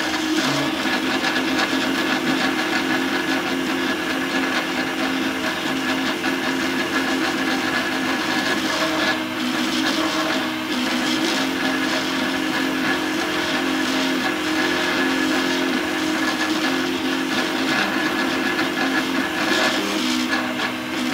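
A home-built 3D printer printing: its stepper motors whine in several tones whose pitch shifts every second or two as the print head moves, over a steady hiss.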